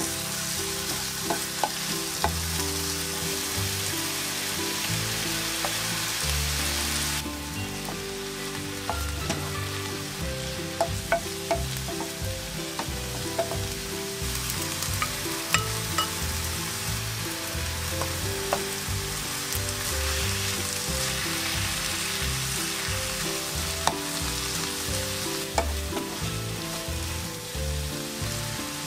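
Pork and vegetables sizzling as they are stir-fried in a ceramic-coated frying pan, with a wooden spatula scraping and now and then tapping against the pan.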